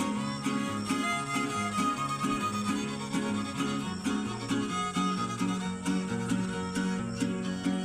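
Huasteco string trio playing an instrumental passage: a violin carries the melody over a steady strummed rhythm from the jarana and huapanguera guitars.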